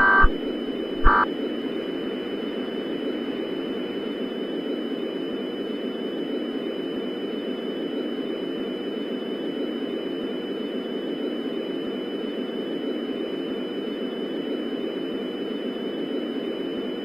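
Two short data bursts of an Emergency Alert System end-of-message signal, about a second apart at the start, then steady static hiss with a thin high tone over it.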